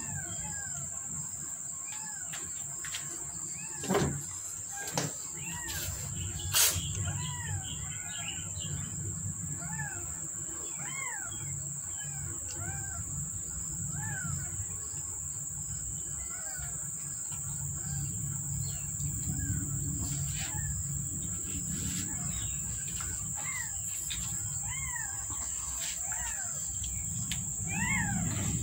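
Two-week-old kittens mewing: many short, thin cries that rise and fall in pitch, often overlapping, over a steady high insect drone. A few sharp knocks come between about four and seven seconds in.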